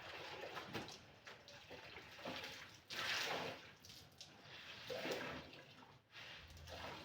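Water sloshing and swishing as clothes are scrubbed and wrung by hand in a basin, in irregular strokes, the loudest about three seconds in.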